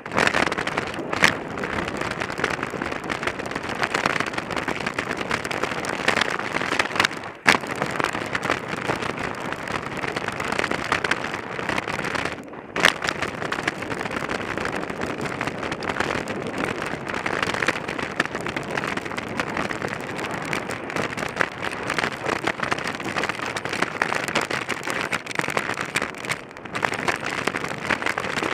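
Mountain bike descending a rough dirt and rock trail at speed: a steady rush of noise with tyres crackling over the ground, and a few sharp knocks from hits on rocks.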